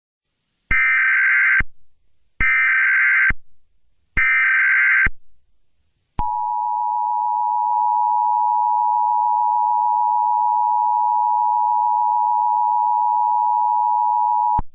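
Emergency Alert System tones: three short SAME data bursts about a second and a half apart, then the steady two-tone EAS attention signal for about eight seconds, cutting off abruptly.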